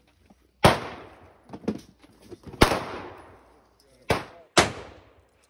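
Gunshots: four loud, sharp shots at uneven intervals, one about a second in, one near the middle and two close together near the end, each trailing off in an echo, with a few fainter shots between.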